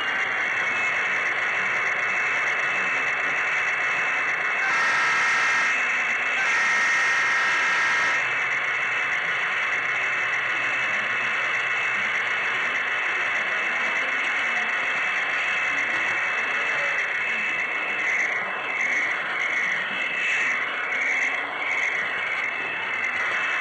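HO scale model train running along the rails, a steady rushing whir heard up close from on board. Two short chord-like tones sound around five and seven seconds in, and a run of short falling squeaks comes near the end as it passes over the turnouts.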